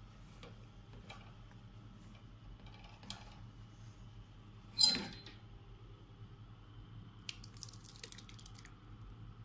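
Kitchen utensil sounds at a glass Pyrex baking dish: faint taps and scrapes, then one sharp ringing clink about five seconds in. Near the end comes a quick run of small clicks and squishes as tomato sauce is poured over the ground beef mixture.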